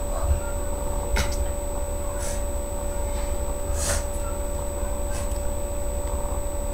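Steady electrical hum with a thin, constant high whine, and a few brief soft hissing sounds spaced about a second apart.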